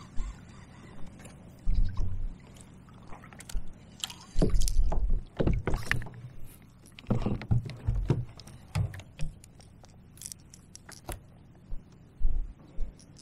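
Hooked largemouth bass being fought to the side of a kayak and landed by hand: irregular splashes and knocks against the hull with sharp clicks of handling, busiest in the middle.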